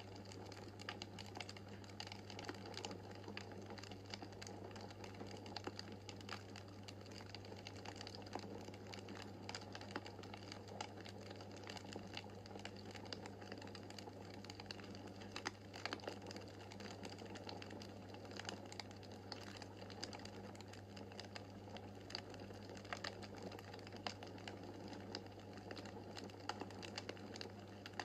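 Wood fire crackling in a fireplace: a continuous run of irregular small pops and snaps over a steady low hum.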